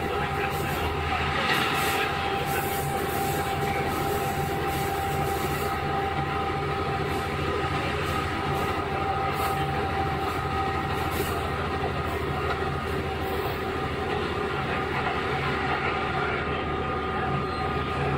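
KiHa 11 diesel railcar under way, its Cummins engine running steadily under wheel and rail noise, with scattered sharp clicks from the track, mostly in the first few seconds.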